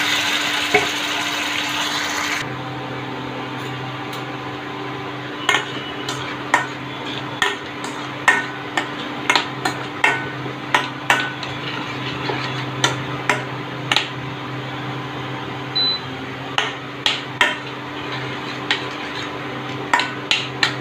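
Steel spoon stirring a thick methi curry in a steel pan: irregular metal clicks and scrapes against the pan. For the first two seconds or so the freshly added curry sizzles loudly in the hot tempering oil, then the sizzle stops suddenly.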